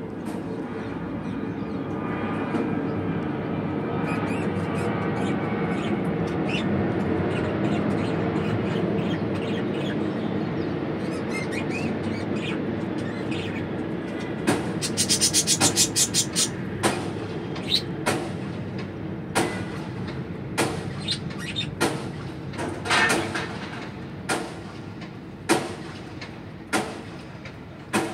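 Budgerigar chick cheeping as it begs and is fed: a rapid run of short, sharp cheeps about halfway through, then single cheeps roughly once a second. A steady background rumble runs under them, loudest in the first half.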